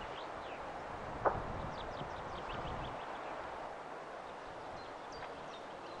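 Small birds chirping in short, quick, falling notes over a steady outdoor hiss, with one sharp click about a second in.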